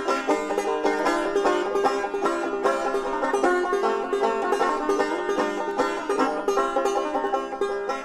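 Instrumental passage of an old-time folk song: a banjo picking many quick notes over guitar accompaniment.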